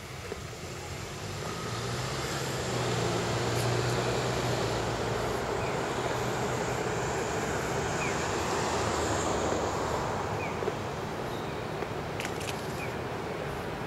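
Road traffic going by: a vehicle's engine hum and tyre noise swell about two seconds in, then ease to a steady background of traffic.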